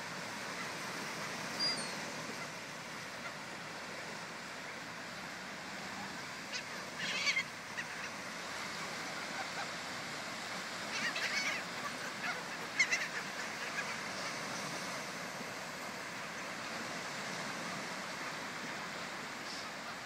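Steady surf washing on the beach, with gulls giving short calls in bursts about seven seconds in and again around eleven to thirteen seconds.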